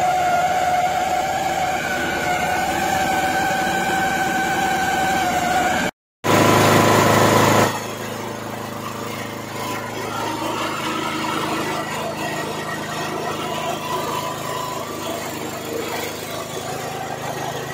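A small engine runs a soybean splitting and dehulling machine with a steady mechanical hum and whine. About six seconds in the sound cuts out briefly and comes back with a loud rush, then settles into a lower, steady run.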